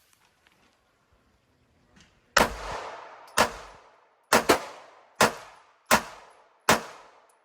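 Micro-compact 9mm pistol firing a string of single shots at a steady pace of about one every three-quarters of a second, with one quick double, starting a little over two seconds in; each shot rings off briefly.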